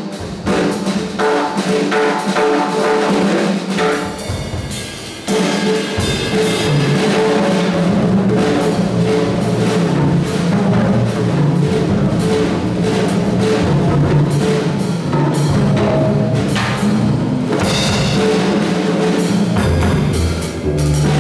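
A jazz band playing live, with the drum kit to the fore: many snare, cymbal and bass-drum strokes over held notes from the other instruments, and a short stretch of drums alone about four seconds in.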